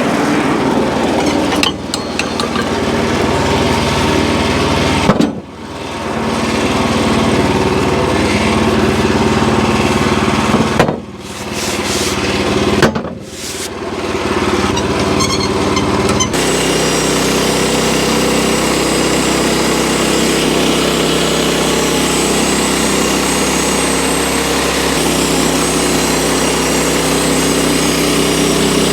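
Wood-Mizer LX25 band sawmill running steadily, its engine driving the band blade, with three sudden brief drops in sound and a change in tone about 16 seconds in.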